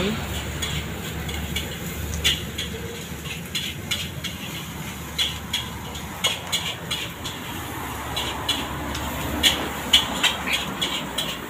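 Street ambience: a steady low rumble of traffic and engines, with irregular sharp clinks scattered through it, thickest near the end.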